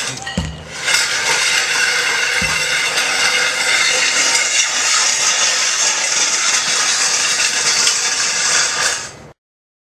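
Steel prowler sled loaded with a weight plate dragged by a rope over asphalt: a steady, loud scraping with a couple of low thuds in the first few seconds, cutting off abruptly near the end.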